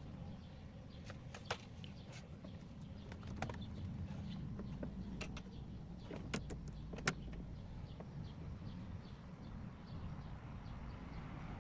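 Scattered light clicks and knocks, as of tools and metal parts being handled while a washing machine's gearbox is taken apart, over a low steady rumble. One sharper knock comes about seven seconds in.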